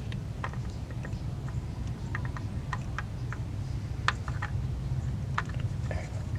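Scattered light clicks and taps of small metal parts and hand tools being handled during lifter installation, about a dozen at irregular intervals, over a steady low hum.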